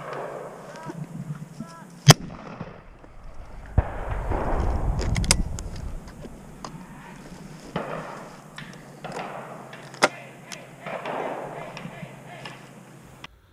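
A shotgun shot fired close by about two seconds in, very loud, followed by a second, fainter shot near ten seconds.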